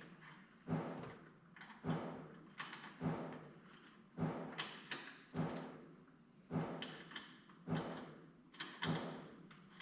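Allen wrench tightening the clamp screws of an all-metal grab handle on a roll bar: a series of sharp metal knocks and clicks, about one a second, as the key is turned and re-seated.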